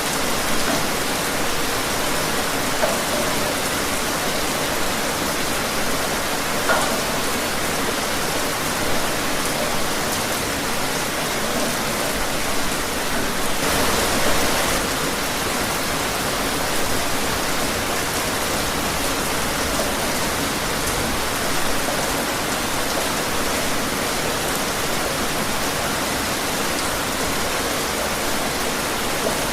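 Steady rain falling, an even hiss with scattered drop ticks and a brief louder gust about halfway through.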